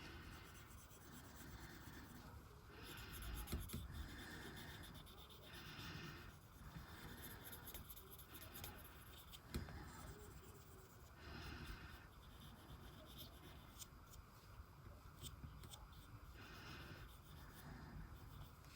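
Faint rubbing and scratching strokes of a tool being worked over nails, coming in irregular bursts every few seconds.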